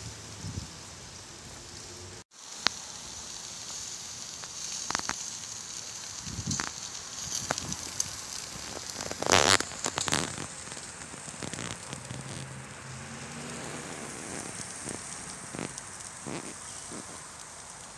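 Bone-in rib steak sizzling on a grate over charcoal, a steady hiss with scattered pops and crackles of spitting fat, the loudest cluster about halfway through.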